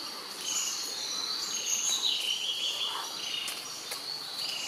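Forest ambience: small birds chirping in short, repeated high-pitched phrases over a faint steady hiss, with a couple of faint clicks about three and a half seconds in.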